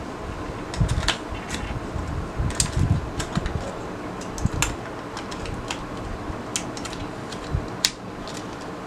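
Irregular small clicks and taps as a DDR4 RAM module is handled and pushed into a laptop's memory slot, with a few dull knocks. A steady hum runs underneath.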